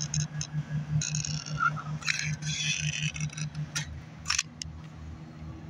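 Pressurized can of rubberized patch sealant hissing and sputtering as sealant is pushed out through its nozzle around a roof vent pipe, in several spurts. Then a few sharp clicks from the nozzle and can.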